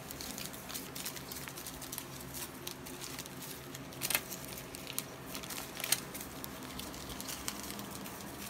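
Foil and plastic drink-mix packets rustling and crinkling as they are handled and slid across a table, with scattered small clicks and a few sharper crinkles about four and six seconds in.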